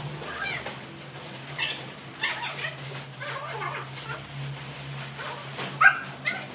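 Pet monkey giving short high-pitched squeaks and cries, several times, over a steady low hum.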